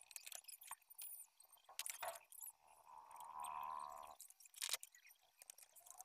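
Faint clicks and light knocks of a microwave oven's control board being handled and fitted into its front-panel housing, with a brief hum lasting about a second and a half near the middle.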